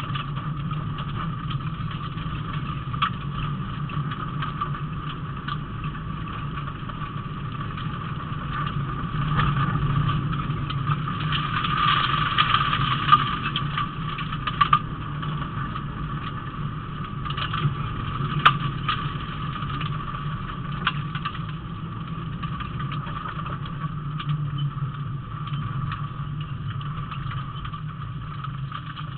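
Rally car's engine running at a fairly steady pitch, heard from inside the cabin over road noise on a gravel stage, growing louder for a few seconds about a third of the way in. Scattered sharp clicks and knocks come through the car's body.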